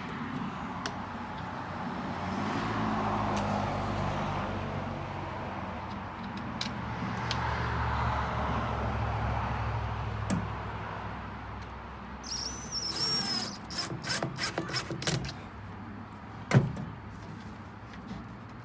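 Road traffic passing on a nearby highway, two vehicles swelling up and fading away in turn. After that come a run of small clicks and knocks from handling the work, and one sharp knock a couple of seconds before the end.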